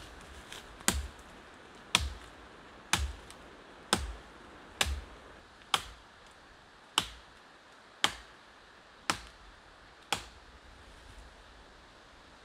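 Repeated striking: ten sharp knocks at an even pace of about one a second, the first half with a deeper thud under each knock.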